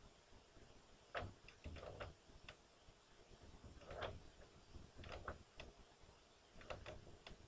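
A marker pen writing on paper: faint, short, irregular scratches, one for each stroke of the letters.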